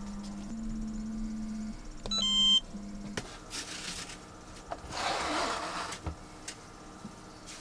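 A short electronic beep about two seconds in, over a low steady hum that stops soon after; then two brief bursts of rustling, hissing noise.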